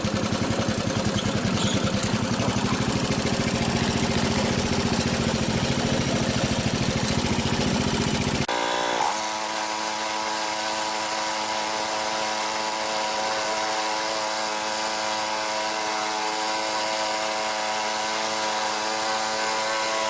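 Riding lawn tractor engine running with a rapid, even beat for about eight seconds. It cuts off abruptly, and a steady buzzing drone held at one pitch follows.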